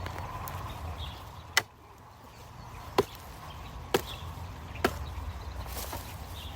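A tool chopping, four sharp strikes roughly a second apart.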